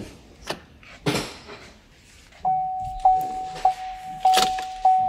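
A few knocks and thumps as someone gets into the pickup's cab. Then, about two and a half seconds in, the 2015 GMC Sierra's dashboard warning chime starts: a single-pitch ding repeating about every 0.6 seconds, with a sharper knock near the key in the ignition.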